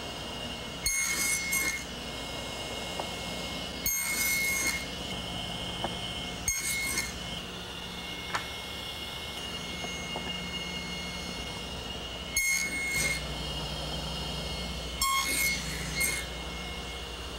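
Table saw running with a steady high whine. Its blade cuts through wood several times, each cut a short, louder burst.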